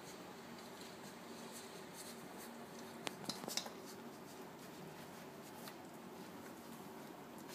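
Newborn puppies nursing: faint suckling clicks and soft scratching against the towel, with a short cluster of clicks about three seconds in, over a faint steady hum.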